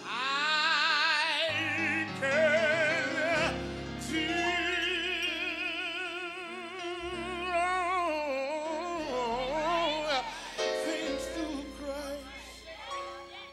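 Gospel singer's voice holding long, high notes with wide vibrato, sliding down through a run about two-thirds of the way through, over keyboard accompaniment.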